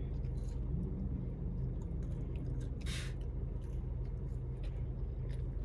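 Steady low rumble and hum, with a few faint clicks and one short rustling noise about three seconds in.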